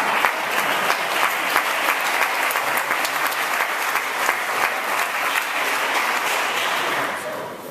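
Audience applauding, with many hands clapping, dying away near the end.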